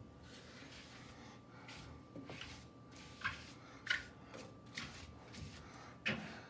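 Wet sponge scrubbing across an enamel stovetop, with about five short, sharper scrubbing strokes standing out over a faint steady background hum.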